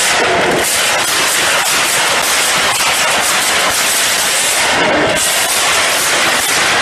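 Muscle car's exhaust running loud inside a concrete parking garage: a dense, continuous rattle of rapid pops and crackles with no break.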